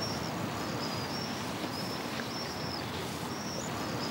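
Outdoor ambience: a steady hiss with a short high chirp repeating every half second or so.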